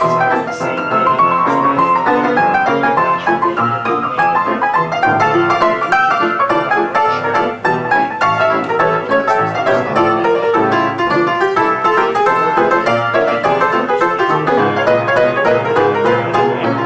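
Ragtime played on an old upright piano: a fast, busy stream of notes that goes on without a break.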